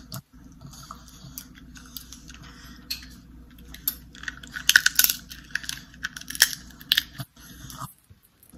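Close-miked eating sounds: a run of sharp crackling clicks and crunches as seafood is bitten and chewed, thickest and loudest from about four to seven seconds in.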